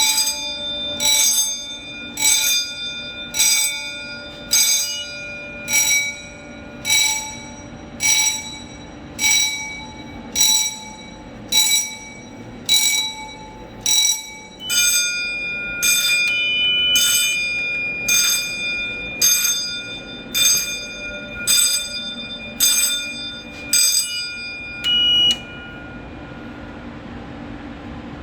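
An alarm system's sounder going off in short ringing pulses about once a second, which stop abruptly about 25 seconds in as the alarm panel is reset. A low steady hum carries on underneath.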